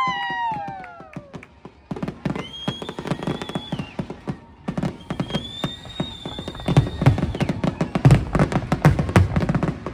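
Fireworks display: high whistles rising and holding before they cut off, among many sharp cracks. Heavy booming bursts and dense crackling build up over the last few seconds.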